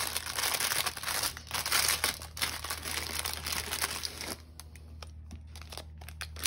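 Packaging crinkling and rustling as a new key charm is unwrapped by hand, easing off about two-thirds of the way through into a few light clicks of handling.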